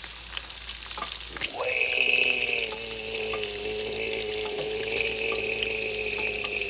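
Bacon frying on an electric grill plate: a steady crackling sizzle with small pops. From about one and a half seconds in, a steady held tone sounds over it and stops near the end.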